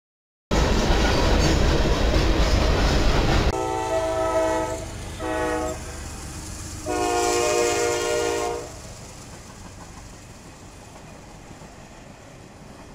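Freight cars rolling past with a loud rumble and clatter for about three seconds, breaking off abruptly. Then a diesel locomotive's air horn sounds a long, a short and a long blast, the crossing signal for a grade crossing, followed by the quieter, steady rumble of the train rolling through the crossing.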